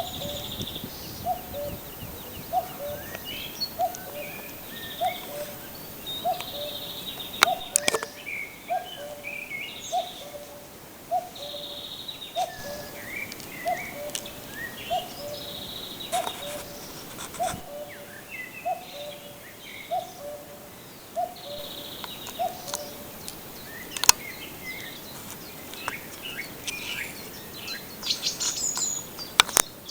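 Forest birdsong: a low two-note call, the second note lower, repeated steadily a little more than once a second and stopping about three-quarters of the way through. Higher chirps and short trills from other birds run over it, with a few sharp clicks.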